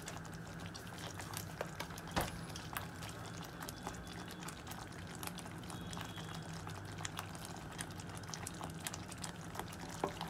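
Thick tomato-based gravy simmering in a pan, with irregular small pops and blips of bursting bubbles over a steady low hum. One sharper click about two seconds in.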